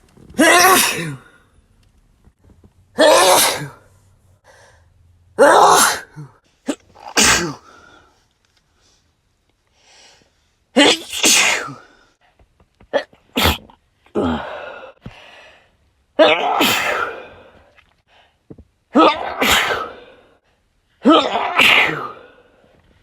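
Human sneezes, about ten of them, one after another with short silent gaps between, each a sudden loud burst.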